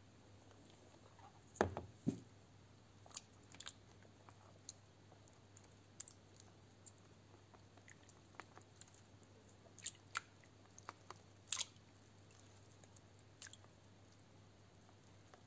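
Faint, scattered crackles and clicks of rooted grape cuttings being handled and lifted from wet soil in a plastic tub, over a faint low hum. The two loudest clicks come close together about one and a half to two seconds in.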